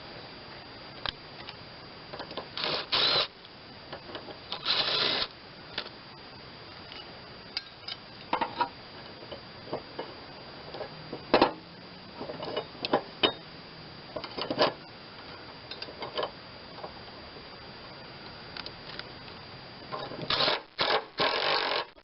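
Hand-tool work on metal mower-deck parts: scattered clicks and clinks, with a few short rasping bursts of about half a second, as of a ratchet wrench turning bolts.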